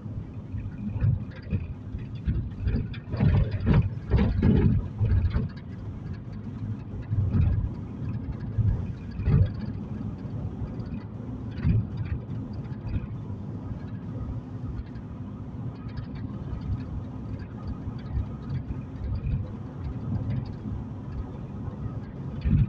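Road noise heard from inside a moving car's cabin: a steady low rumble, with a cluster of louder knocks and thumps about three to five seconds in and scattered lighter ones after.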